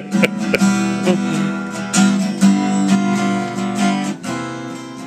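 Acoustic guitar strummed in a steady rhythm of chords, with no singing.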